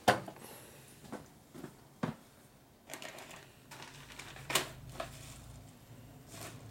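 A sharp knock at the start, then a scattered series of light clicks and taps of small objects being handled on a workbench, with a faint low hum coming in about halfway through.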